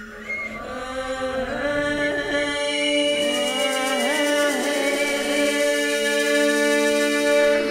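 Shamanic-style music: a woman's wordless chanting voice bending and wavering in pitch over a steady sustained drone, with a high shimmering layer coming in about three seconds in.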